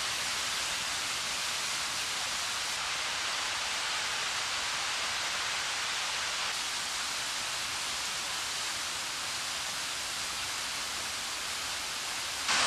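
Whitewater rapids of a mountain river rushing: a steady, even noise of fast-flowing water.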